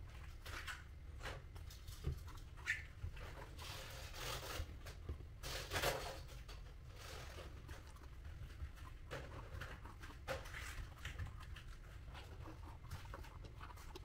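Cardboard being handled and worked by hand: scattered rustles, scrapes and light taps, with a longer scraping rustle around four to six seconds in.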